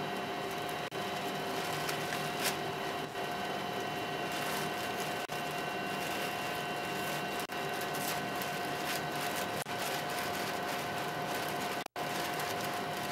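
Steady hum of the Space Shuttle Columbia's cabin fans and equipment, holding several constant tones, with faint crackles of a trash bag being stuffed. The sound cuts out for an instant near the end.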